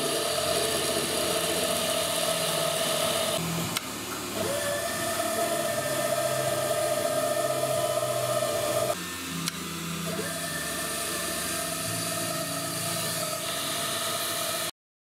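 Bench milling machine (Wabeco F1200) running steadily as a drill bit bores into a brass part. The sound drops and changes twice, about 4 and 9 seconds in, and cuts off abruptly near the end.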